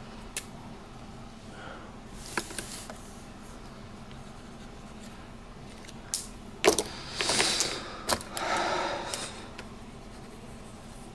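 Metal fountain pens being handled: a few sharp clicks of caps and barrels, with two short scratchy, rustling stretches about seven to nine seconds in.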